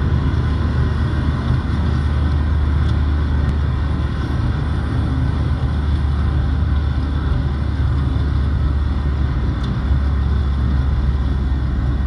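Steady rumble of engine and tyre noise heard from inside the cabin of a car driving at road speed.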